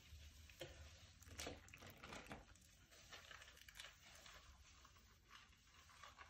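Near silence: faint, irregular rustling and light ticks of something being handled, over a low room hum.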